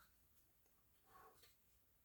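Near silence: room tone, with one faint, brief sound a little over a second in.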